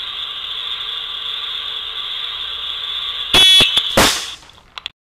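Slingshot shot: a loud sharp snap with a brief metallic ring about three seconds in, then a second loud hit half a second later that rings away. A steady high-pitched whine runs underneath.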